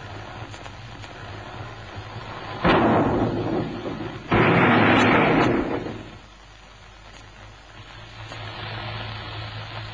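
A 1934 Citroën Traction Avant crashing as it tumbles down a rocky slope: two loud, sudden crashes of metal and rock, the first about three seconds in fading over a second or so, the second a little later and lasting nearly two seconds, over a low steady hum.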